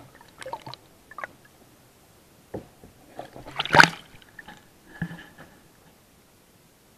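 Water sloshing and splashing around a camera dipped under the surface beside a kayak, in scattered short knocks and splashes. The loudest is a big splash about four seconds in as it breaks out of the water.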